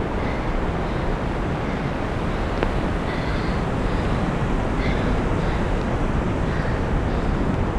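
Strong gusty wind blowing across the microphone: a loud, steady rumbling rush.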